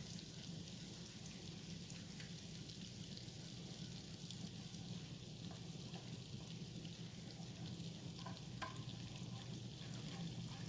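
Butter melting in a saucepan on a stovetop burner, sizzling faintly and steadily over a low steady hum, with a couple of light clicks.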